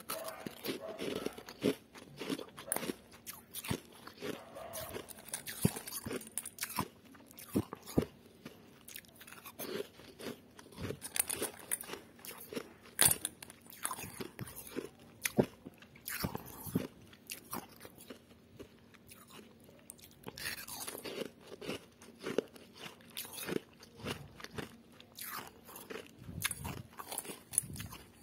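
Freezer frost being bitten and chewed close to the microphone: irregular sharp crunches, several a second, with a short lull about two-thirds of the way through.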